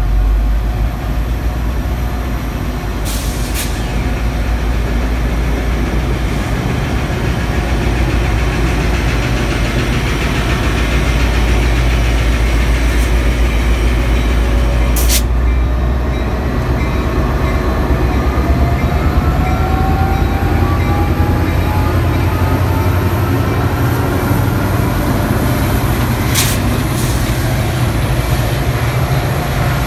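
Metra commuter train passing close by: diesel locomotive engine rumbling steadily with the running noise of the bilevel cars' wheels on the rails, and a few sharp clicks along the way.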